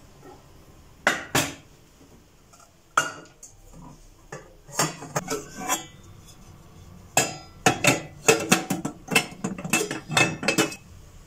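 Dishes and cutlery clattering: scattered sharp clinks and knocks, a couple about a second in, then a quick cluster, and a dense run of them in the second half.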